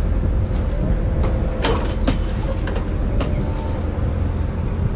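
An engine on board a small fishing boat running steadily with a low rumble and a constant hum, with a few light knocks and clicks on deck.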